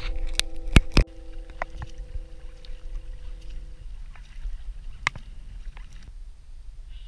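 Sharp knocks and clatter of gear and a caught fish being handled on a plastic fishing kayak, over a low rumble of water and wind on the microphone. A held note of background music stops about four seconds in.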